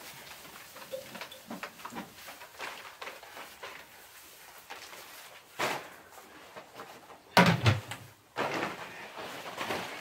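Hay and feed bags being handled in a wooden barn stall: scattered rustling and light knocks, with one loud thump about seven seconds in, followed by a longer rustle.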